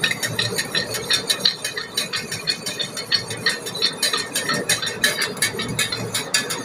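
Dense, irregular crinkling and rustling of a plastic instant-coffee sachet being handled and torn open over a steel tumbler.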